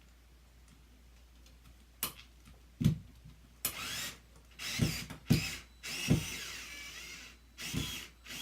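Cordless drill/driver run in several short bursts, backing out the long screws that hold a ceiling fan's mounting bracket to the roof truss, with sharp knocks in between; the longest run comes about two-thirds of the way in.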